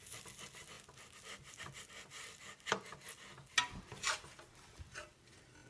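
Spatula scraping under pancakes on a hot griddle, a few short scrapes over a faint steady hiss.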